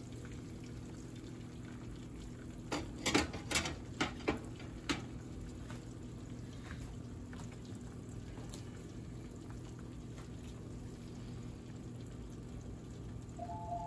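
Breaded cube steaks deep-frying in a pot of hot oil, a steady bubbling sizzle. A quick run of sharp clicks comes about three to five seconds in.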